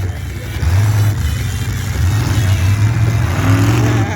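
Demolition derby cars' engines revving hard: a loud, low rumble that surges and dips several times.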